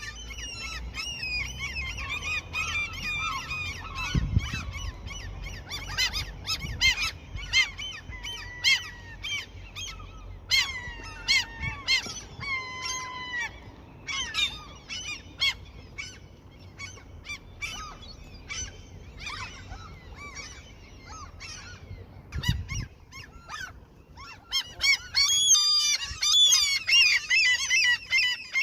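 A flock of seagulls calling, many short, gliding, overlapping calls that thin out midway and swell into a dense chorus near the end. A couple of low thumps are heard along with the calls.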